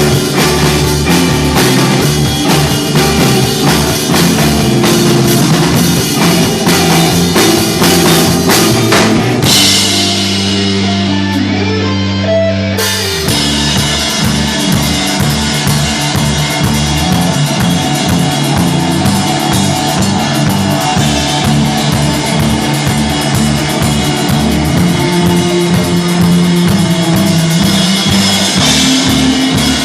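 Stoner rock band playing live, with electric guitars, bass and a drum kit. About ten seconds in, the drums drop out and a low chord is held for about three seconds, then the full band comes back in.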